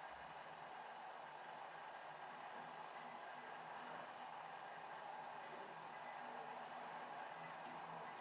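A single high-pitched pure tone, held without a break and slowly gliding upward in pitch, the kind of squeaky sound played to make a sable prick up its ears.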